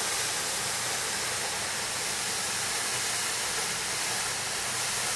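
Dam outfall discharging a high-pressure jet of water that crashes into the pool below: a steady hiss that sounds basically like static.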